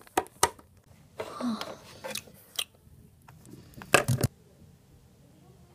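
Handling noise: light clicks and taps of plastic Littlest Pet Shop toys and playset pieces being moved, with a louder knock about four seconds in.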